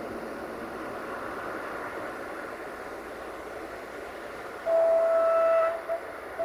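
Diesel multiple unit passenger train sounding its single-note horn: one blast of about a second, starting nearly five seconds in, then two short toots, over a steady hiss.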